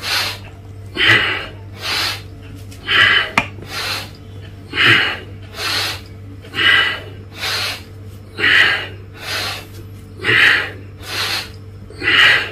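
A man breathing forcefully through his squats: short, noisy breaths in a steady rhythm, a stronger one and a fainter one in turn, a pair about every two seconds, one pair to each squat.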